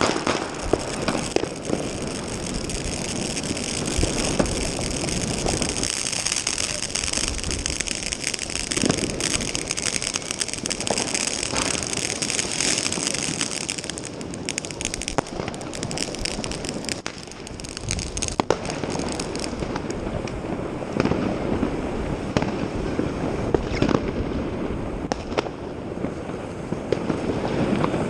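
Fireworks going off all around: a dense, unbroken crackle of firecrackers and exploding rockets, with many sharp pops and bangs.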